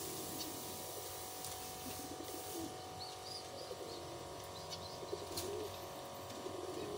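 Fantail pigeons cooing, a run of low wavering coos. These are display coos from puffed-up birds fanning their tails, typical of a cock courting. Faint higher chirps come in now and then.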